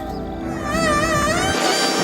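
Background music: a wavering, vibrato-laden melody line over sustained tones, with the texture changing to a fuller, noisier sound about three-quarters of the way through.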